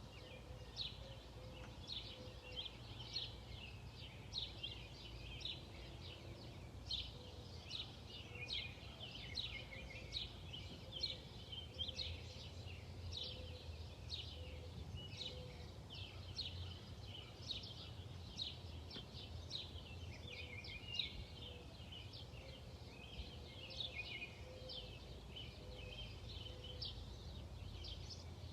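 Birds chirping outdoors: a constant stream of short, high chirps, faint, over a steady low hum.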